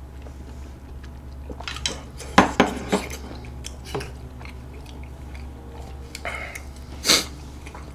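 A small ceramic bowl and a wooden spoon knock against each other and the table as they are set down, in a quick cluster of sharp clicks about two to three seconds in. A few softer clicks follow, then a brief louder noise near the end, over a steady low hum.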